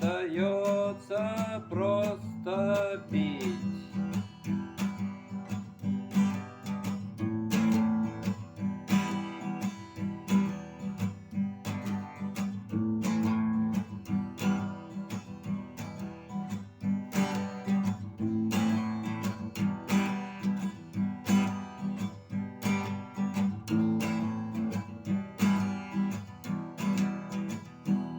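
Strummed acoustic guitar playing a steady rhythm, a song's instrumental outro; a voice sings one last line over it in the first few seconds.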